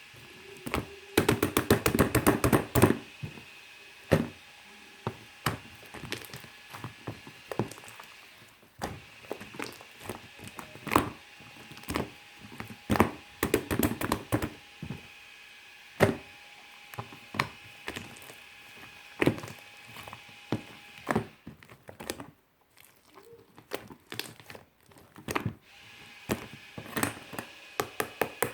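Shaving-foam marbled slime full of air bubbles being pressed and squeezed by hand, giving small clicking pops and crackles as the bubbles burst. A dense rapid run of pops comes a second or two in, then mostly single pops about once a second, with a quieter stretch near the end.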